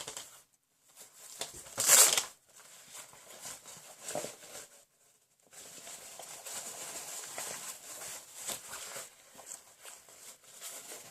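Plastic packaging and fabric rustling and crinkling as a dump pouch is unwrapped and handled, with a short loud rip about two seconds in and steady crinkling through the second half.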